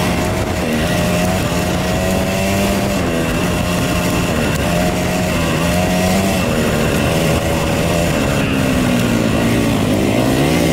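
Two-stroke dirt bike engine running under way, the revs rising and falling as the throttle opens and closes.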